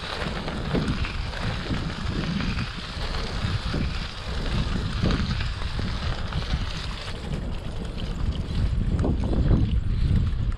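Wind buffeting the microphone of a chest-mounted action camera on a moving bicycle, a steady low rumble that grows louder over the last few seconds.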